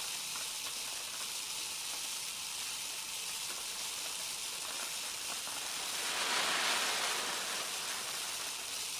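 Rice grains trickling from a feed tube onto a conical rice pile: a steady, fine hissing patter of many small grains. About six seconds in it grows louder for about a second as a small avalanche of grains slides down the side of the pile.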